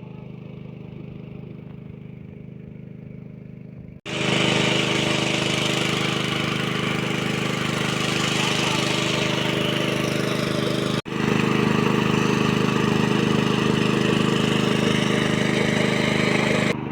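Engine-driven water pump running steadily while draining a pond. About four seconds in the sound jumps much louder and a strong rushing hiss joins the engine hum. The sound breaks off abruptly near eleven seconds and then resumes as before.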